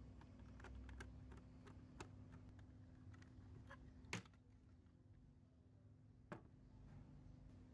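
Faint clicks and taps of a die-cast model car being taken apart by hand, metal body and plastic chassis knocking lightly, with a sharper click about four seconds in as the body comes off the chassis and another near six seconds.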